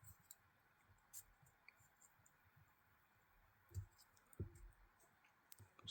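Near silence with a few faint, scattered clicks and two soft knocks from small parts of a Benchmade Emerson folding knife being handled during reassembly.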